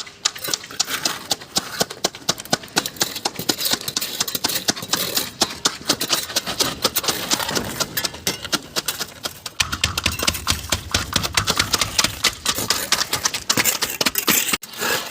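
Rapid, irregular clattering and knocking, as of construction work. A low engine hum joins in about ten seconds in and stops shortly before the end.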